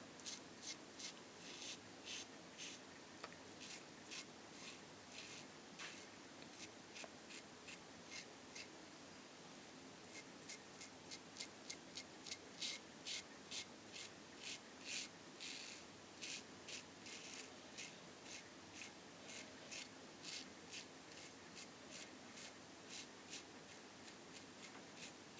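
Gillette Tech safety razor with a Rapira blade cutting through lathered stubble: many short, crisp scraping strokes, a few a second, coming faster in the middle stretch.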